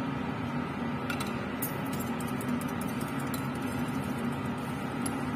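Laminar air flow cabinet blower running with a steady hum, with a few faint ticks of metal forceps against glassware.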